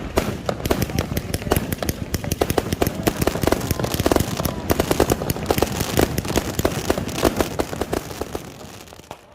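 Fireworks crackling: a dense, rapid run of small sharp bangs, many a second, that thins out and fades near the end.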